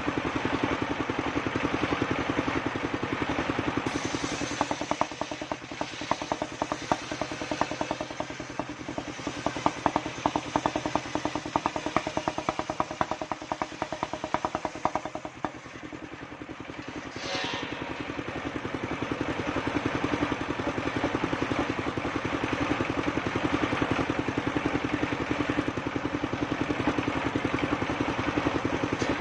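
Engine of a homemade circular saw rig running steadily, with a rapid ticking rattle over it for several seconds. The level dips briefly about halfway through, then the engine runs on at full level.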